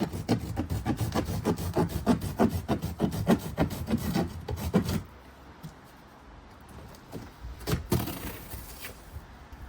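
A knife sawing through a corrugated cardboard box in quick, even strokes, about four or five a second. The sawing stops about five seconds in, giving way to quieter handling of the cardboard with a couple of knocks.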